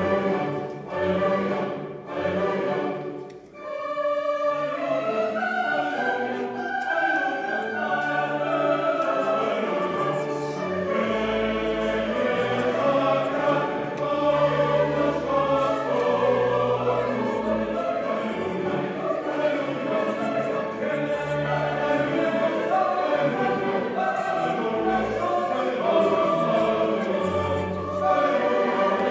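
Parish church choir singing an Alleluia. A few short phrases with brief breaks come in the first seconds, then continuous full singing in several voice parts.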